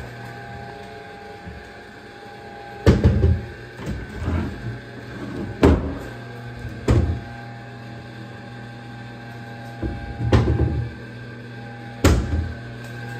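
Wooden vanity cabinet doors being opened and shut, about five sharp knocks with softer rattles between, over a steady low hum.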